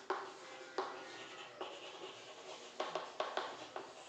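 Chalk writing on a chalkboard: a series of sharp taps with short scratchy strokes between them, several taps coming quickly together about three seconds in.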